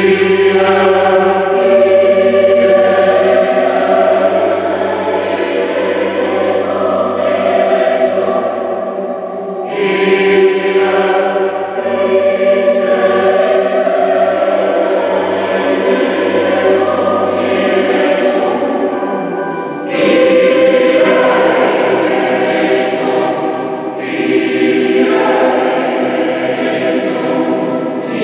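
A choir singing in long held phrases, with short breaks between phrases about ten, twenty and twenty-four seconds in.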